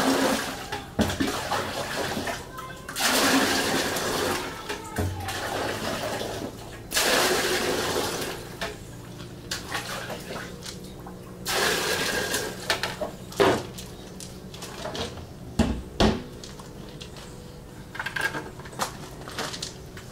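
Water splashing over a person taking an outdoor shower: several pours of a couple of seconds each, a few seconds apart, then a few knocks and drips.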